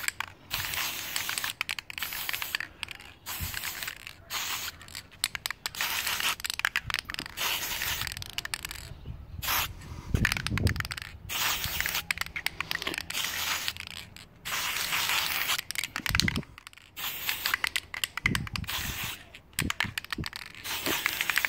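Aerosol can of silver chrome spray paint hissing in short bursts, stopping and starting many times, as a brake caliper is coated.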